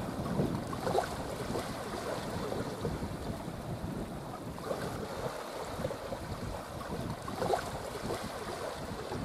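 Wind noise on the microphone over small waves washing onto a sandy beach, with a few short louder gusts.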